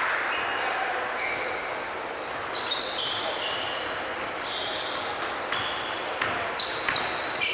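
Basketball game on a hardwood gym floor: sneakers squeaking in short chirps and a basketball being dribbled, the bounces coming several times in the second half, all echoing in the hall with a murmur of voices.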